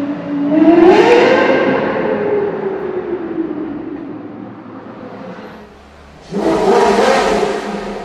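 Lexus LFA V10 idling, then revving sharply about half a second in and pulling away in a tunnel, its note falling and fading over the next few seconds. About six seconds in, a Porsche Carrera GT V10 comes in suddenly with a loud rev.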